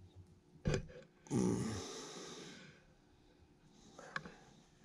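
A tired man's long, voiced sigh, a heavy breath out that fades over about a second and a half, preceded by a short knock.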